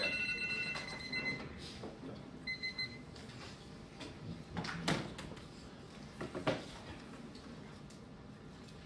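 Electronic timer alarm beeping in steady high tones, stopping about a second and a half in and sounding briefly once more a second later, which marks the end of the timed crossfire. A couple of light knocks and handling sounds follow.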